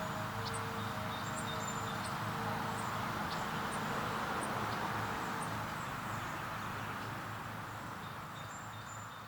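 Outdoor ambience after the tornado siren has stopped: birds chirping in short high calls over a steady background hum. A faint steady two-note tone fades out about two seconds in.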